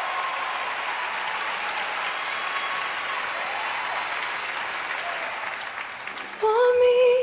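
Theatre audience applauding steadily. About six seconds in, a woman's voice cuts in over it, singing one loud held note with a slight vibrato.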